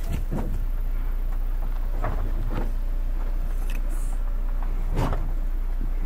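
Vehicle rolling slowly down a rocky dirt track: a steady low rumble with several knocks and rattles as the wheels go over loose stones, the loudest about five seconds in.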